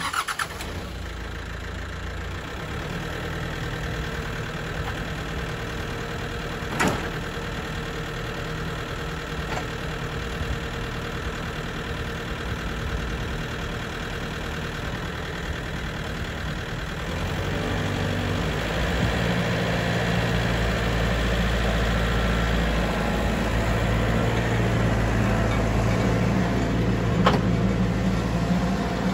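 Compact tractor's diesel engine running under load as the front loader lifts and the tractor moves off, getting louder from a little past halfway as it is throttled up. A single sharp knock about seven seconds in.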